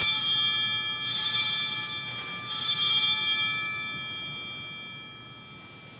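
Altar bells rung at the elevation of the chalice after the consecration. They are struck three times, at the start, about a second in and about two and a half seconds in, and each strike rings on in high clear tones before fading away.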